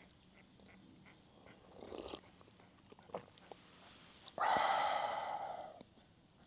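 A person eating: quiet chewing and mouth clicks, then a louder breathy sound that lasts over a second, about four and a half seconds in.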